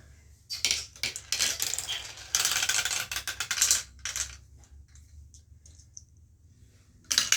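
Marbles clattering down a toy marble run: a dense rattle of quick clicks for about four seconds, then a few scattered light ticks, and another loud rattle starting near the end.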